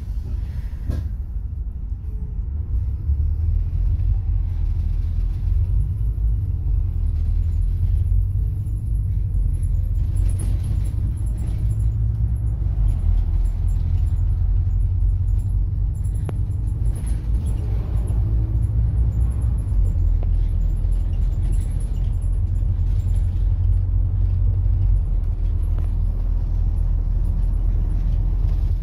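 Bus engine and road noise from a moving bus, heard from inside as a steady low rumble.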